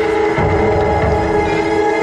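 Loud music with long held notes over a pulsing bass beat, played through a large car-mounted loudspeaker system.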